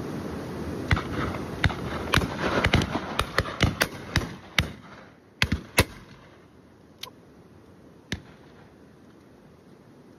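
A rapid volley of shotgun shots from several guns, near and distant, about a dozen crowded together in the first five seconds, then two single shots a second apart later on.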